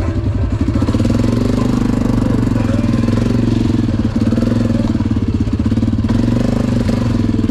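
ATV engine running loud and steady, picking up slightly about a second in and then holding an even pitch.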